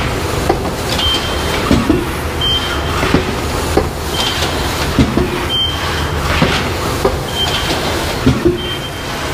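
SATE S700 rigid box making machine running through its repeating cycle: a steady mechanical din with regular clicks and knocks, and a short high tone coming about every one and a half seconds.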